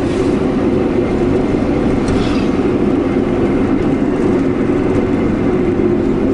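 Steady drone of a small car's engine and tyres on the road, heard from inside the cabin while driving along.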